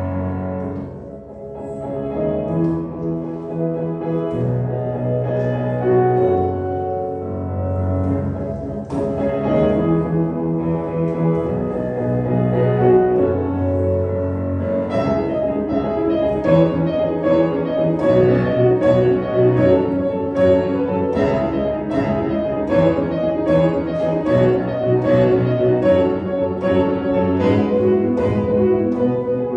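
Grand piano and cello playing a classical piece together live. The music grows busier and more rhythmic about halfway through.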